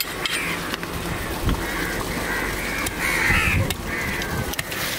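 Crows cawing again and again, several short harsh calls in a row, with a few sharp clicks in between.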